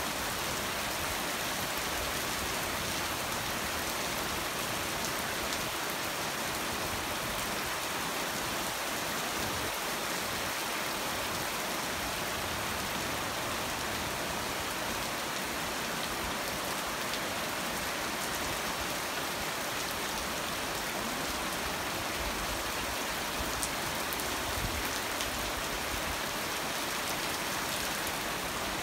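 Steady rain falling on a wet street, an even, unbroken hiss.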